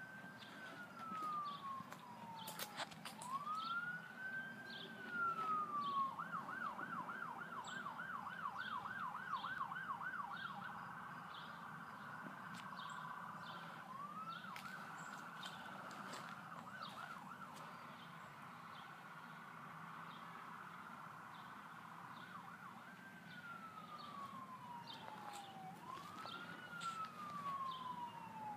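Electronic siren of a responding fire apparatus, still some way off. It sweeps slowly up and down in a wail, switches to a rapid yelp a few seconds in and again about halfway, then goes back to the slow wail near the end.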